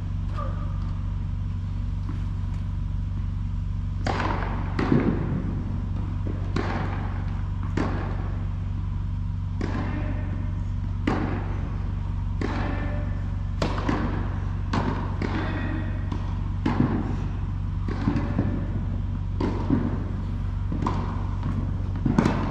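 Tennis balls being hit with rackets and bouncing on an indoor hard court during play, a sharp pop roughly once a second from about four seconds in, over a steady low hum.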